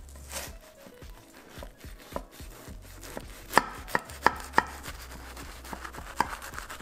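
Knife cutting through a crisp baked puff pastry crust: a run of crackling crunches, with four sharp, louder cracks about halfway through.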